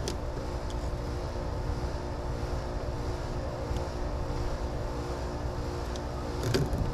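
A steady motor or engine hum over a low rumble, unchanging throughout, with a faint click near the end.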